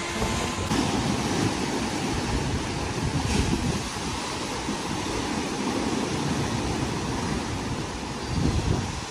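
Ocean waves crashing and washing over a rocky, boulder-strewn shore: a continuous rush of surf, with a louder surge near the end.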